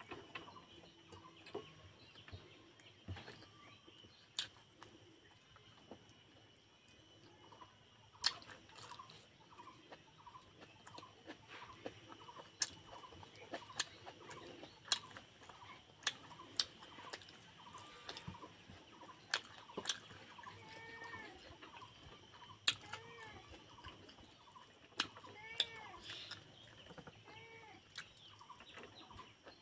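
Chickens clucking in a run of short arched calls that grow busier in the second half. Sharp clicks come now and then from fingers working rice on a steel plate.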